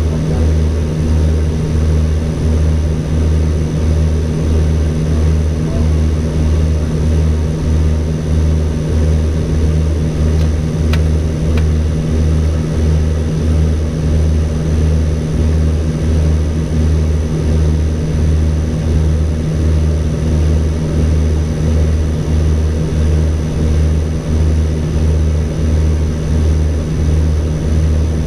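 Drone of the ATR 42-320's two Pratt & Whitney PW121 turboprop engines and propellers, heard inside the cockpit on approach. A low throb pulses steadily about one and a half times a second, under a faint constant high whine.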